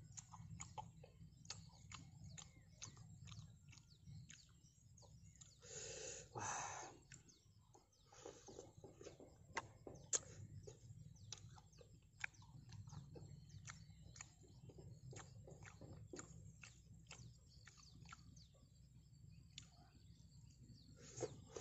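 Faint open-air quiet with scattered small bird chirps and ticks, a brief hiss about six seconds in, and one sharp click near ten seconds.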